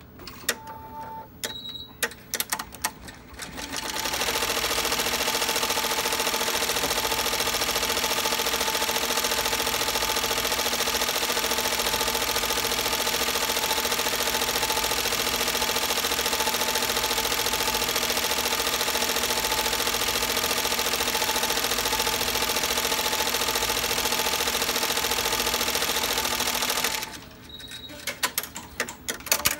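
Commercial multi-needle embroidery machine stitching into a knit beanie held in its hoop. It starts with a few clicks and a short high beep, starts stitching at a steady rapid rate about four seconds in, runs for over twenty seconds, and stops near the end, leaving a few more clicks.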